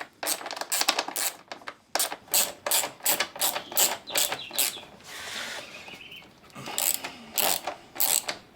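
Ratchet wrench clicking in quick strokes, with metallic clinks, as the nuts holding a motorcycle exhaust are undone.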